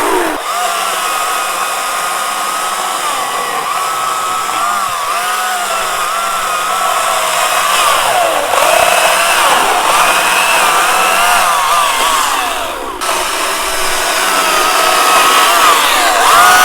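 GreenWorks Commercial battery-powered electric chainsaw running at full speed, a steady high whine that sags in pitch several times under load as it cuts, with a brief break about thirteen seconds in.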